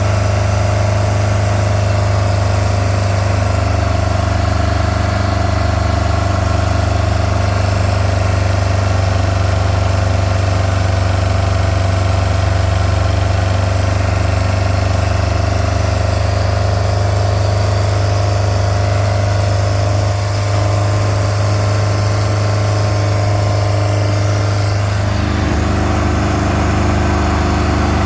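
MerCruiser 3.0 inline four-cylinder marine engine running steadily at idle, with an exhaust leak. Its note changes about 25 seconds in.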